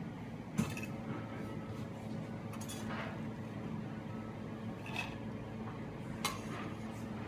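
Metal spatula and fork clinking against a plate on an iron griddle as food is arranged: about four separate sharp clinks, the loudest about half a second in, over a steady low background hum.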